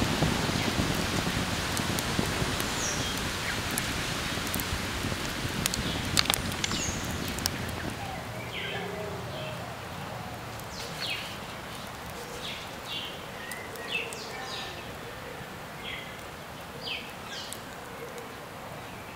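For the first several seconds a dense hiss dotted with sharp crackles fills the sound, then fades out. After that the forest is quieter, with birds giving short, high chirps again and again.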